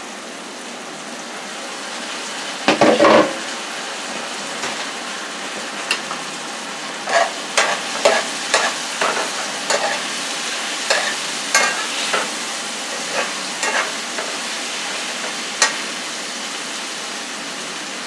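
Diced peppers and onions sizzling in a skillet on a gas stove, getting a little louder over the first couple of seconds as the lid comes off. A loud clatter about three seconds in, then a spoon stirring and scraping the vegetables around the pan in a run of short knocks.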